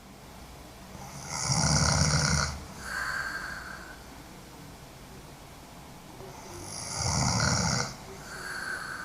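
A woman snoring hard in her sleep: two snores about five seconds apart, each a loud, deep snore on the breath in followed by a softer, shorter breath out.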